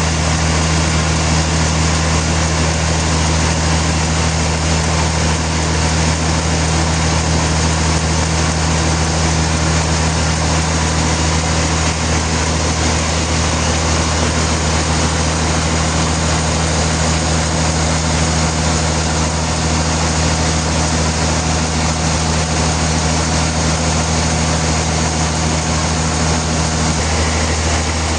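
Sawmill machinery running steadily: an even engine hum with a constant hiss over it, unchanged throughout.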